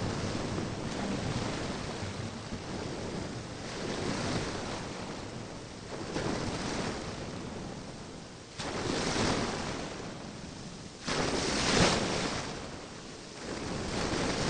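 Ocean waves: a steady rush of surf noise that swells and falls back every few seconds, the biggest swell near the end.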